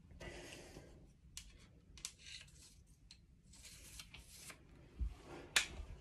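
Soft rustling handling noise with a few light clicks, a low thump about five seconds in and a sharper click just after it, the loudest sound.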